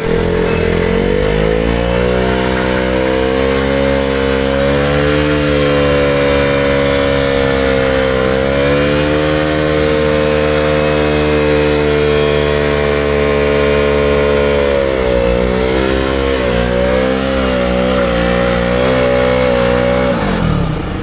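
KTM RC 200 single-cylinder engine held at high revs: the pitch climbs right at the start, holds steady, wavers up and down in the last few seconds, then drops off near the end.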